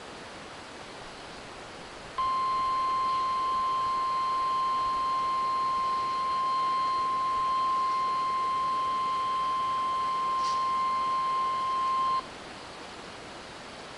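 NOAA Weather Radio warning alarm tone, the 1050 Hz tone sent for the Required Weekly Test, played through a Midland WR-100 weather radio's speaker. One steady high beep starts about two seconds in and cuts off suddenly about ten seconds later, over constant radio hiss.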